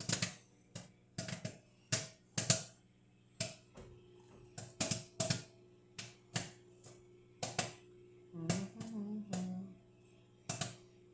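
Microwave popcorn popping in its bag: sharp, irregular pops, one or two a second, thinning out near the end, over the steady hum of the running microwave oven.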